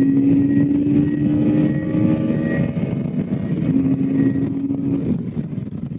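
KTM 250 Adventure's single-cylinder engine pulling steadily while merging onto the highway, over a rush of wind noise. The engine note holds steady, breaks off briefly about two and a half seconds in, returns, and eases off about five seconds in.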